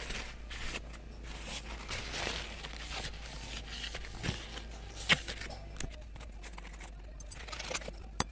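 Small metal boat parts (servo rods and prop shafts) being handled and rubbed clean: uneven rubbing and scrubbing with scattered light clicks, and a sharp click about five seconds in and another near the end.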